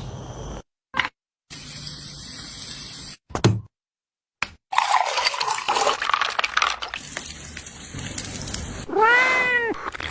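A domestic cat meows once near the end, a single call that rises and falls in pitch. Before it come short, abruptly cut stretches of hissy background noise separated by brief silences.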